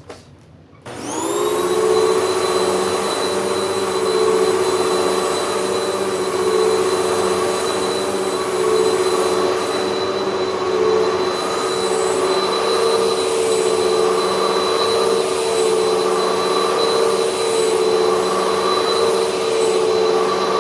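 Hoover WindTunnel MAX upright vacuum cleaner switched on about a second in, its motor spinning up to a steady high whine. It then runs on carpet as it is pushed back and forth through repeated passes, the level swelling slightly and falling back.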